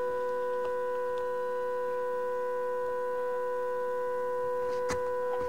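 The IntelliQuilter's Y-motor drive wheel spinning in clean-rollers mode with a cotton swab held against it, making a steady hum with a clear pitch. A brief click comes near the end.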